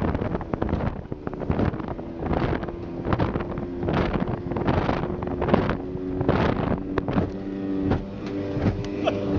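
Two-stroke 50 hp outboard motor running steadily at cruising speed, with wind on the microphone. The hull slaps and splashes through the chop a little under once a second.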